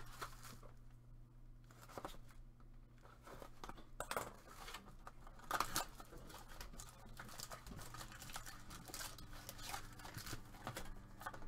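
Cardboard trading-card box being opened by hand: the top flap is pulled up and torn open, with short papery rips, rustles and crinkles. It is mostly quiet for the first few seconds, then busier from about four seconds in.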